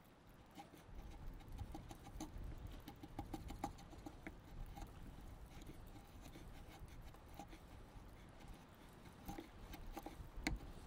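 Hand wood chisel paring a softwood board, with irregular scraping strokes and short squeaks as the blade digs in and lifts shavings; the blade is still dull and needs sharpening to cut cleanly.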